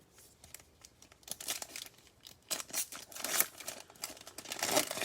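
Trading-card pack wrapper being torn open and crinkled by hand, in irregular rustling bursts that start about a second in and grow louder.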